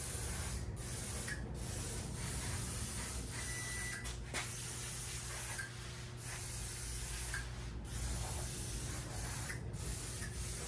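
Aerosol garage door lubricant being sprayed in long hissing bursts, broken by several short pauses.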